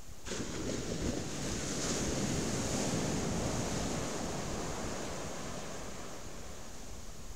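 Surf in a rough sea washing up a sandy beach: a rush of foaming water that sets in suddenly, swells over the first few seconds and slowly fades as the wave runs back. Wind buffets the microphone throughout.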